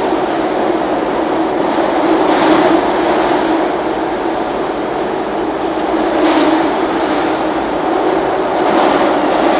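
SEPTA Market-Frankford Line M-4 subway car running through the tunnel, heard from inside the car: a steady rumble of wheels on rail, swelling louder three times.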